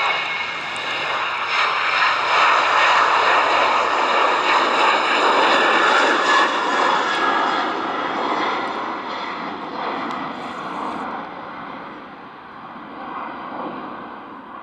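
Boeing 737-800's twin CFM56-7B turbofan engines at takeoff thrust as the jet lifts off and climbs away: loud jet noise with a steady high-pitched whine, loudest in the first half and fading steadily over the last several seconds as it recedes.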